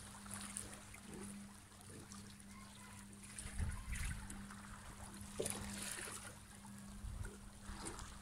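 Small waves lapping and trickling over the stones at the water's edge, faint, with a few soft low thumps.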